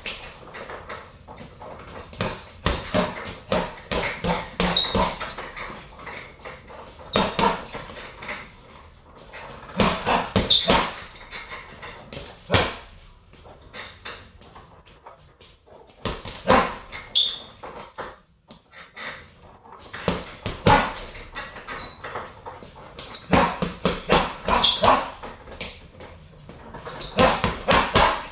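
Boxing gloves striking a hanging Everlast heavy bag in quick flurries of several punches, with short pauses between combinations.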